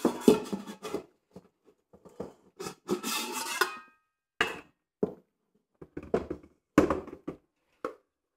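Stainless steel stand-mixer bowls knocking, clanking and scraping against each other as they are handled and separated, with one bowl ringing briefly about three seconds in. About seven or eight separate knocks in all.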